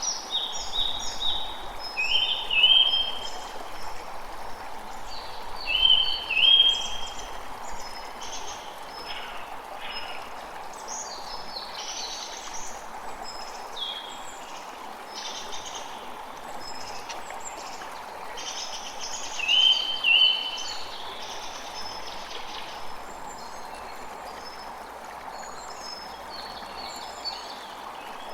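Flowing water making a steady rushing hiss, with many songbirds chirping over it; a louder burst of chirps comes three times, about 2, 6 and 20 seconds in.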